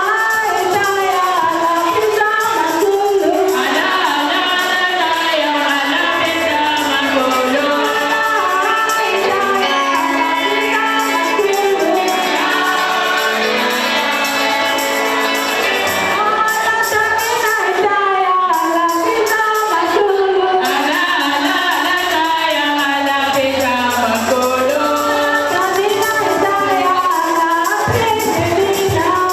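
Singing with musical accompaniment, with a choir and tambourine in the gospel style close by.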